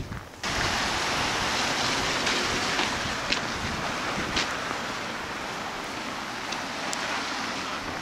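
Steady rushing street noise outdoors, starting abruptly about half a second in, with a few faint clicks scattered through it.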